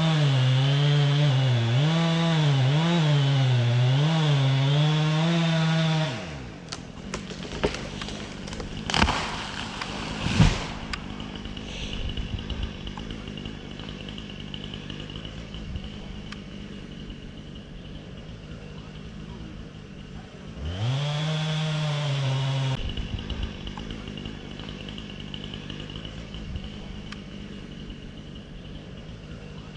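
Chainsaw running hard with its pitch wavering, then letting off about six seconds in; two loud sharp knocks follow a few seconds later. The saw revs up again briefly about twenty seconds in, with quieter running in between.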